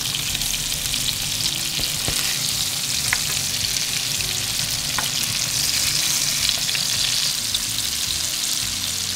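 Seasoned kingfish pieces sizzling steadily in butter and olive oil in a frying pan while they are turned with tongs, with a few faint clicks from the tongs.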